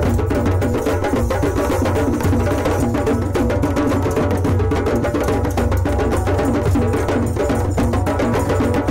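Drum circle: many hand drums played together in a dense, steady interlocking rhythm with no pause.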